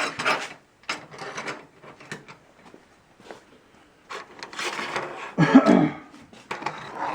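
Garage door hinges and hardware being handled and fitted onto a door panel: scattered clicks, rattles and scrapes of metal parts, with a louder scrape about five and a half seconds in.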